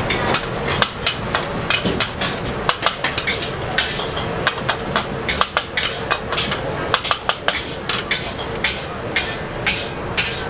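Metal ladle repeatedly scraping and clanking against a steel wok while pad thai noodles are stir-fried, with sharp irregular knocks several times a second.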